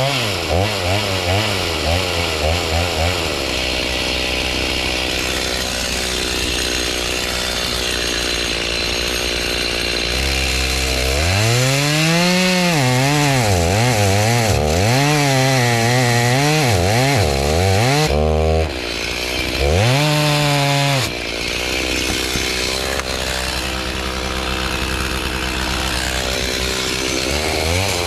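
Chainsaw engine running at a steady low speed for several seconds, then revved up and down over and over for about ten seconds, with its pitch rising and dipping. It settles back to a steadier low speed and revs up again near the end.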